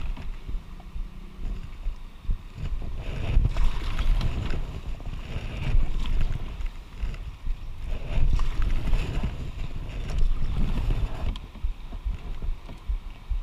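Wind buffeting the microphone over the rush and splash of river rapids around a paddled canoe. The water noise and splashes are strongest through the middle and ease off near the end.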